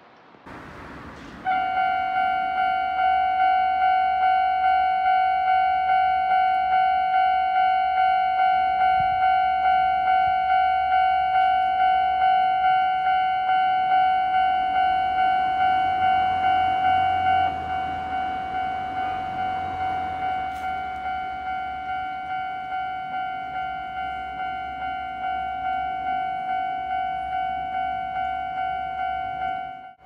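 Japanese railway level-crossing warning bell ringing: an electronic ding repeating at an even pace. It starts about a second and a half in and turns somewhat quieter a little past halfway, signalling that a train is approaching.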